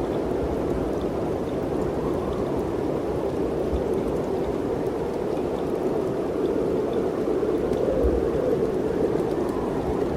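Mountain wind blowing steadily, a continuous rushing that swells a little about eight seconds in, with occasional low rumbles.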